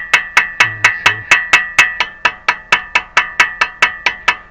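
Hammer tapping a small chisel against a seized brake-rotor retaining screw to turn it, about four quick strikes a second, each with a bright metallic ring.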